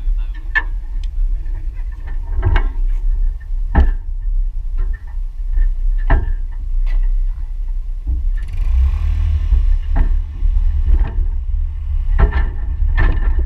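Wind buffeting an outdoor camera microphone: a steady low rumble with scattered knocks and a stronger hissy gust about two thirds of the way through.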